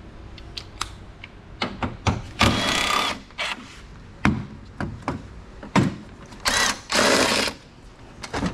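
A power ratchet run in short bursts to back out headlight mounting bolts: one burst about two and a half seconds in, then two close together near the end. Sharp clicks and knocks of the tool and fittings fall between the bursts.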